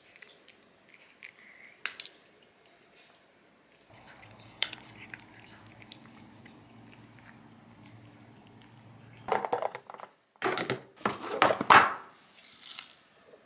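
Cats crunching dry treats from a hand, heard as faint small crunches. Near the end comes a loud clatter of plastic food containers and lids being handled on a counter.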